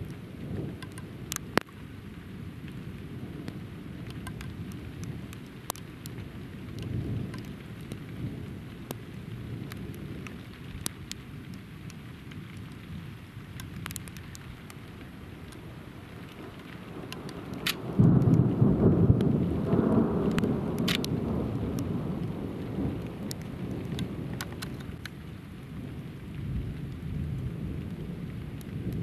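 Thunderstorm: steady rain with scattered raindrop ticks and soft distant thunder rumbles. About two-thirds of the way through, a loud thunderclap starts suddenly and rolls away over several seconds.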